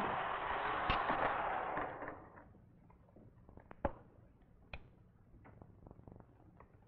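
A laboratory cart running along its track for about two seconds, with a sharp click about a second in, then coming to rest. After that come scattered small clicks and knocks as the ball and its release rod on the cart are handled, the loudest a little under four seconds in.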